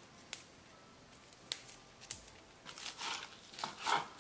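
Fresh mint leaves being picked off their stems by hand, with a few sharp snaps, then a kitchen knife chopping the leaves on a wooden cutting board in a quick run of cuts near the end.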